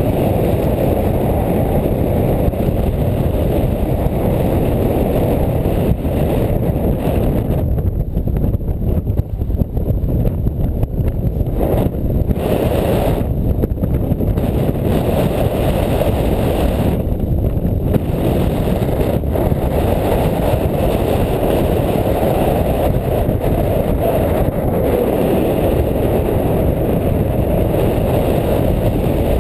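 Steady wind noise from airflow over the microphone of a camera on a paraglider in flight: a loud, low rush with no engine tone, its hissy upper part dropping away briefly a few times.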